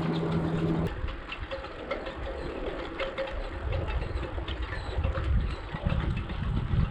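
Low, uneven rumble of wind and road noise on the microphone of a moving bicycle, after a steady hum that cuts off about a second in.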